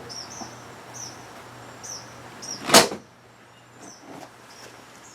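A single loud clunk about three seconds in, with smaller knocks and faint high squeaks before it, as a removable roof side bar of a Smart ForTwo Cabrio is worked into its mount on the car's frame. A steady low hum runs underneath.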